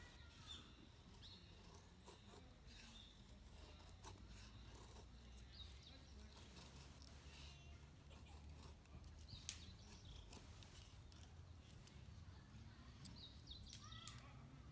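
Faint outdoor ambience over a low steady rumble: small birds chirping now and then in the distance, with a few light clicks.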